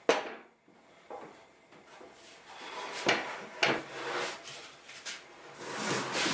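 A wooden board knocking and scraping against a miter saw as it is laid in place. There is a sharp knock right at the start, then a few lighter knocks with scraping between them.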